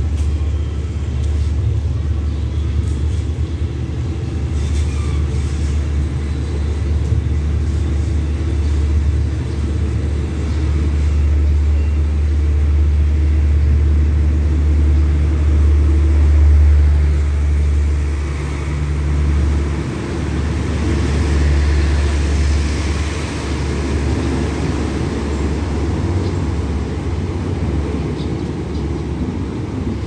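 Diesel-hauled passenger train pulling out of the station, its coaches rolling past with a loud, steady low rumble. The rumble builds to its loudest past the middle, then eases as the train draws away.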